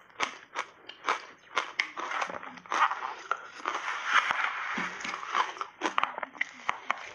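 Close-miked crunching and chewing of shaved ice coated in milk powder: a run of sharp crunches, about two a second, thickening into a dense stretch of grinding crunches in the middle.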